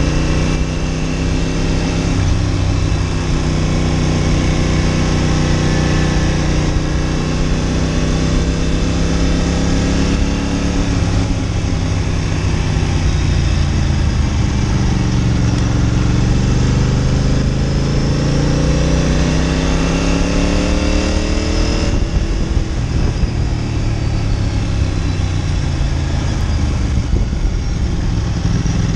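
Ducati Monster 900's air-cooled L-twin engine running under way on a hill climb. The engine note sinks, then rises steadily for several seconds and drops abruptly about two-thirds of the way through.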